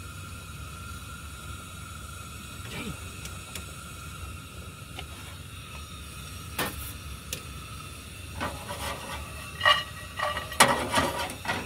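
Camp stove burner hissing steadily under a pan. A couple of sharp knocks come about two-thirds of the way in, then a run of metal clinks and clatter of cookware and utensils near the end, the loudest part.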